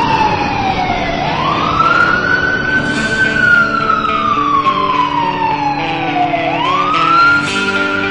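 Wailing siren, its pitch sweeping up quickly and then falling slowly, twice, with steady held tones sounding beneath it.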